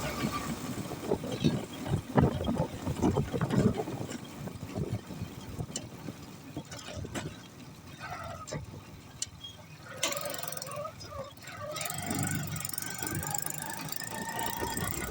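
Rickshaw engine running on the move, with a burst of low rattling knocks over the first few seconds, then a quieter steady run.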